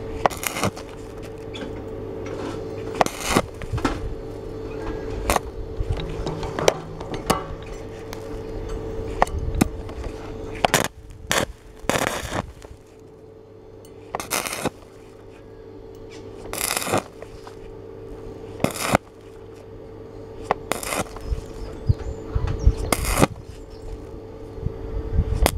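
Stick (arc) welding with a coated electrode, the arc struck in short crackling bursts about every two seconds rather than run as one continuous bead, on thin 2.2 mm steel being built up over a large hole. A steady low hum runs underneath.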